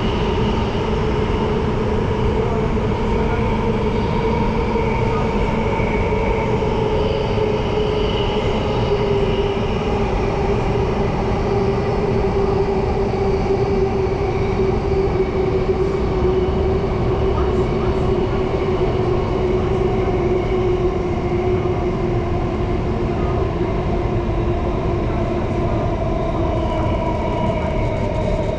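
Inside a Singapore Downtown Line MRT train running between stations: a steady rumble of wheels on track with a sustained electric motor whine that sinks slightly in pitch.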